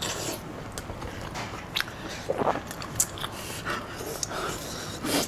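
A person biting and chewing food close to the microphone, with irregular short clicks and wet crackles of the mouth and food.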